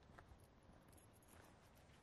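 Near silence, with a few faint scattered ticks and rustles over a low background hiss.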